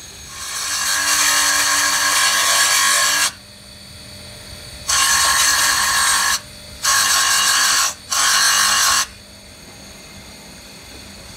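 Thin abrasive disc on an electric grinder's spindle grinding down the weld-built teeth of a pinion gear, in four passes: one long grind of about three seconds, then three shorter ones. Between passes the grinder motor keeps running with a steady hum and whine.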